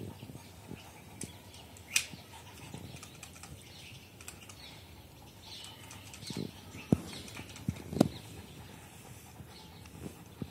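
Rustling with a few sharp clicks, the loudest about eight seconds in, and faint bird chirps in the middle.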